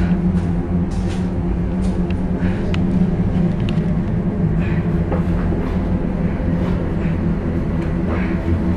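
A steady, low rumbling drone with a held low tone running under it, and a few faint short ticks and swishes above.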